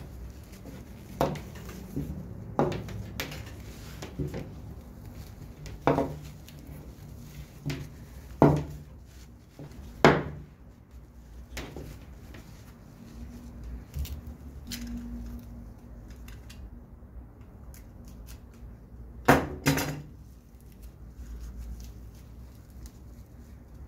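Small tools and materials handled on a wooden desk: about a dozen irregular clinks and knocks, the loudest a little before halfway and a pair near the end.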